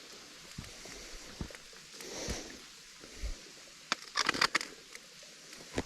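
Hiker's footsteps and scuffs on wet rock and leaf litter: scattered clicks and scrapes, with a louder cluster of sharp clicks and scrapes about four seconds in.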